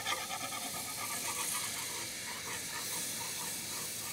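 Cold milk being poured into a hot, bubbling butter-and-flour roux, hissing and sizzling steadily as a whisk stirs it in.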